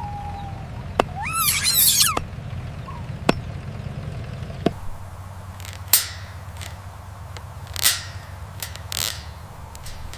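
A low engine hum runs steadily, then cuts off about halfway through with a click. About a second in, a loud high squeal glides up and down for under a second. Scattered sharp clicks and a few short hisses follow.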